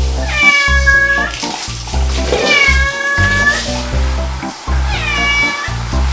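A long-haired cat meowing loudly three times, each call a drawn-out, bending meow, in protest at being bathed. Background music with a low, plodding bass line plays underneath.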